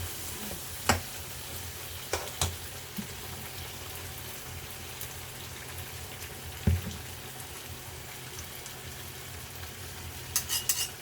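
Okra soup sizzling steadily in a frying pan on the stove. A few sharp knocks of a utensil against the pan come about a second in, twice a little after two seconds and near seven seconds, with a quick rattle of clicks near the end.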